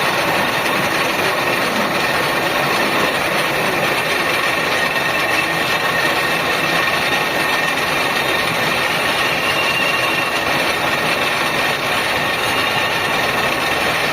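Facing and centering machine running steadily: a continuous, even mechanical noise with a faint high whine.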